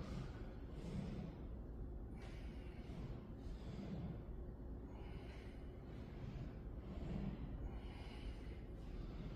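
A man breathing with effort during a suspension-strap exercise: faint, repeated breaths, roughly one every second or so.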